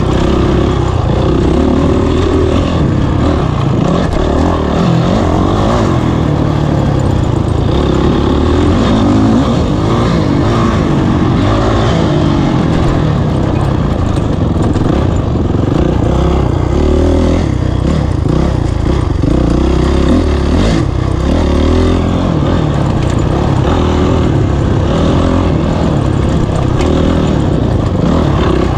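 Honda CRF450 dirt bike's single-cylinder four-stroke engine under race throttle, its revs constantly rising and falling as the rider gets on and off the gas through the woods.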